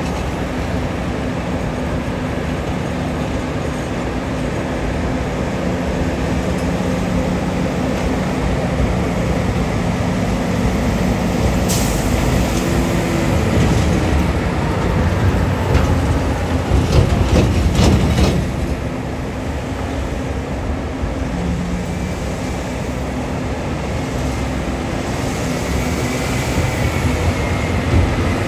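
Heavy diesel engines of a Liebherr R9350 mining excavator and a haul truck running with a steady drone. A louder rumble with clattering comes about 16 to 18 seconds in, with a sharp click a little before.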